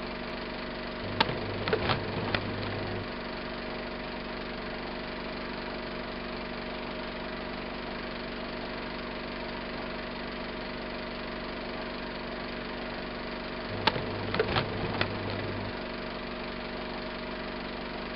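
Film projector running: a steady mechanical whirr with a quick cluster of clicks about a second in and the same cluster again near the end.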